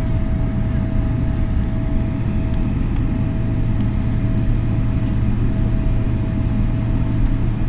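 Airliner cabin noise while taxiing after landing: a steady low engine drone and rumble with a thin steady whine over it, heard from inside the cabin.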